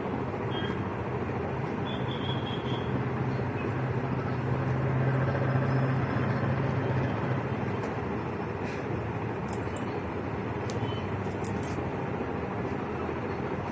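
Steady background rumble and hiss with a low hum that swells a little around the middle, and a few faint clicks near the end.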